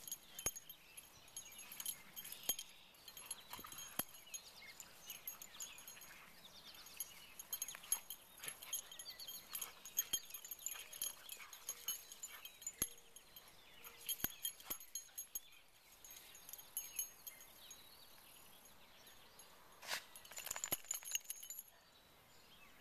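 Metal collar tags jingling and clinking on two playing greyhounds as they run and wrestle, with scattered short knocks and scuffs.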